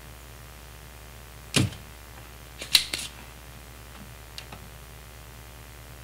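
Edsyn Soldapullt DS-017 spring-loaded desoldering pump firing on a solder joint: a sharp snap of the plunger about a second and a half in, a louder cluster of clicks about a second later, then two faint ticks.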